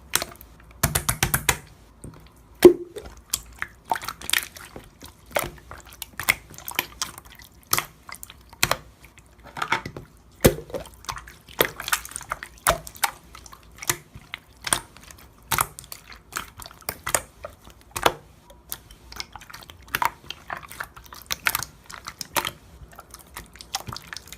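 Clear slime being squished and pressed by hand, giving irregular wet clicks and small popping sounds, about one or two a second.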